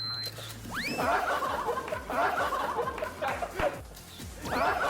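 Laughter over background music, with a quick rising whistle-like sound about a second in and again near the end.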